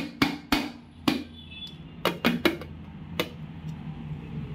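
A steel bowl knocked against a steel plate while it is turned out, about eight sharp metallic knocks in quick clusters, to release a steamed amaranth-and-gram-flour cake from the mould.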